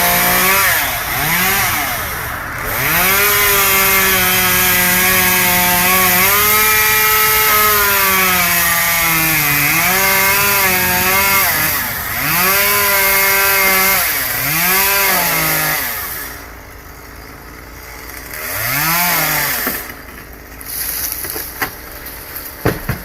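Two-stroke chainsaw cutting wood, its engine revving up and holding high for several seconds at a time, then dropping back. About sixteen seconds in it falls to idle, revs once more briefly, and a few sharp knocks follow near the end.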